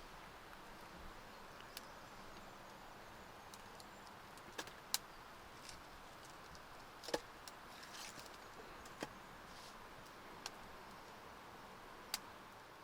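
Small newly lit fire of dry oak kindling and fatwood catching: faint crackling with a handful of sharp, scattered pops.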